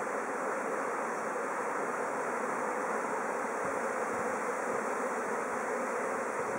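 A swarm of Japanese honeybees flying en masse, a steady dense buzzing hum: the colony swarming out of its hive.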